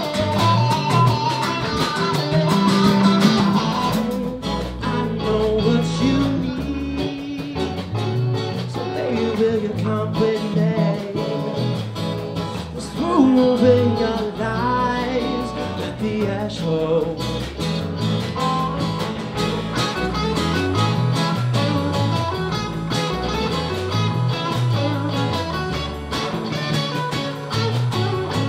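A small band playing live: strummed acoustic guitar, electric guitars and bass guitar, with a voice singing around the middle.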